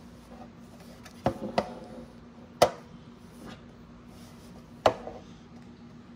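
Sheet-metal case of a network switch knocking against a wooden desk as it is handled and turned over: a handful of sharp knocks with brief ringing, the loudest a little over two and a half seconds in and another near five seconds.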